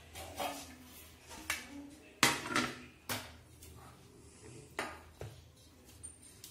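Stainless steel bowl and plate knocking and clinking on the countertop as they are moved about, several separate clanks with the loudest about two seconds in.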